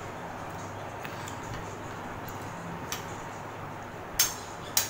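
Spoons and forks clinking lightly against china dinner plates as food is eaten, a few separate clinks with the loudest two near the end, over a steady low hum.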